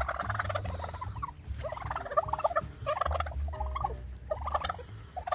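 Domestic turkeys gobbling, about five rattling gobbles in quick succession.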